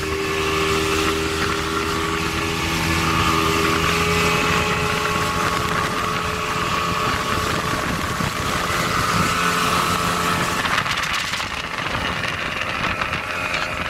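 Motorboat engine running at speed, a steady drone with a higher whine over the rush of water and wind. About eleven seconds in, the whine drops away and the water and wind noise is left.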